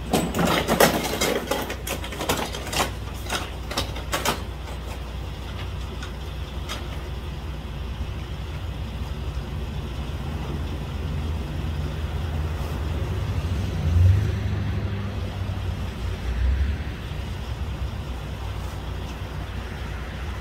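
Steady low rumble of an idling vehicle engine. A quick series of sharp crackles and clatter fills the first four seconds, and a couple of low thumps come later.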